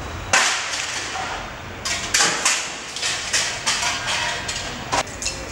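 A series of loud, sudden crashes and clatters, several within a few seconds, the first about a third of a second in and a sharp one near the end.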